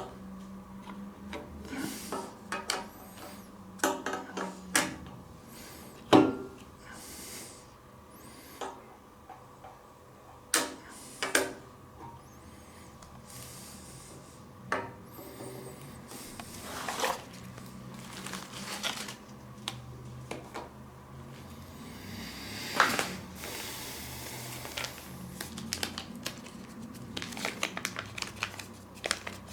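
Hands unpacking a small electronics box: scattered clicks, knocks and rustling of packaging, with the sharpest knocks about six seconds in and near the middle of the second half.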